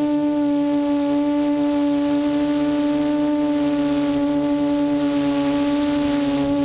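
Quadcopter's 1100 kV brushless motors and propellers whining at one steady pitch while in flight, heard from the onboard camera, with a light hiss of air over it.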